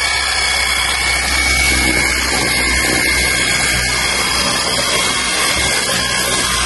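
Cordless 20-volt brushless pressure washer running, its motor and pump giving a steady high whine over the hiss of the water jet spraying onto a motorcycle.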